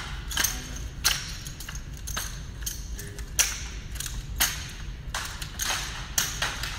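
Repeated whooshes of a long staff-like prop twirled through the air, about two swishes a second, over a steady low hum.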